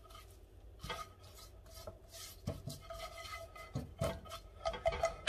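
Silicone basting brush swiped around a nonstick frying pan, spreading cooking oil: a run of uneven soft rubbing strokes, with a sharp knock at the very end.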